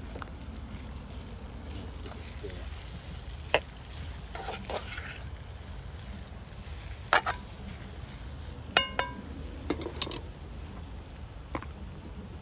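Cooking sounds at a pot: a handful of sharp knocks and clinks of utensils, one ringing like struck metal about nine seconds in, with some short scraping between them, over a steady low rumble.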